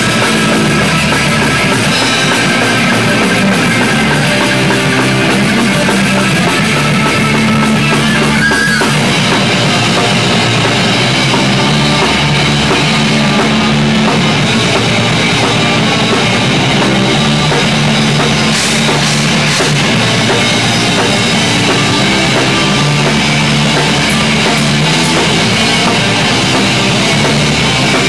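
Rock band playing loudly and continuously: a drum kit with Zildjian cymbals, electric guitars and a bass guitar.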